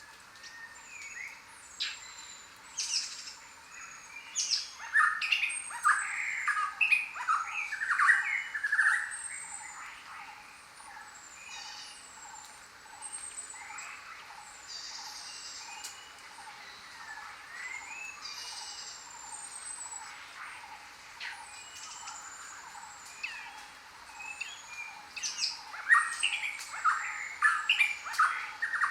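Chorus of many jungle birds calling at once: repeated short high chirps throughout, a fast trill in the middle, and louder clusters of calls about five seconds in and again near the end.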